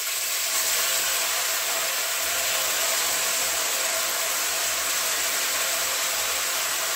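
Soaked rice tipped into hot ghee in a kadai, sizzling loudly and steadily as the wet grains hit the fat.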